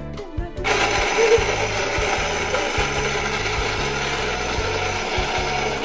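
Small electric food chopper running, its motor and blades whirring steadily, starting about a second in and stopping near the end.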